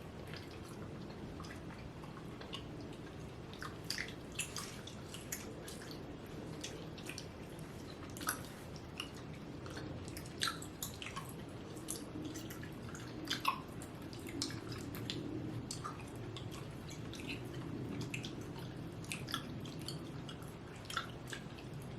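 Chewing soft, taffy-like pineapple Hi-Chew candy, with many wet mouth clicks and smacks scattered throughout.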